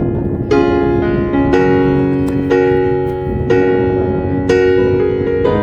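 Background piano music: chords struck about once a second, each ringing on until the next.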